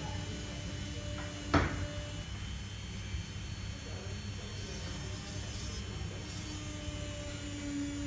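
A single sharp click about one and a half seconds in, over a steady low hum.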